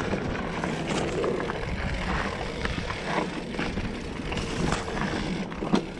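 Mountain bike riding over a dirt singletrack: a steady rush of tyres on dirt with short knocks and rattles from the bike over bumps, and wind buffeting the action-camera microphone.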